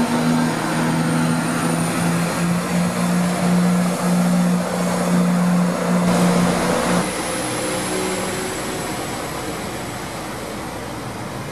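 London Midland Class 170 Turbostar diesel multiple unit running past the platform, its underfloor diesel engines giving a steady droning note over the rolling noise of the train. About seven seconds in the engine note stops and a lower, quieter rumble fades away.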